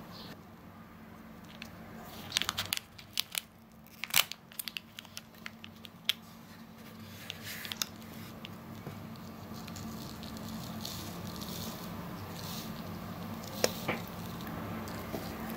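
Foil sachet of bath powder crinkling and being torn open, with scattered sharp clicks and crackles, most in the first half, as it and a small plastic scoop are handled.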